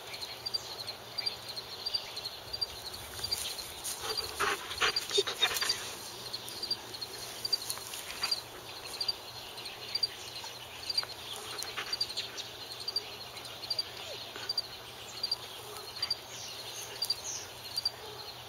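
Pet wolf making a cluster of short vocal noises about four to six seconds in, over a faint, steady, evenly spaced high chirping of crickets.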